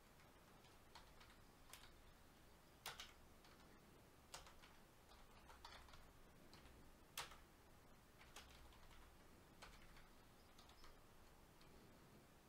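Faint, irregular computer keyboard keystrokes, single clicks spaced about half a second to a second apart, over near silence, with two slightly louder clicks about three and seven seconds in.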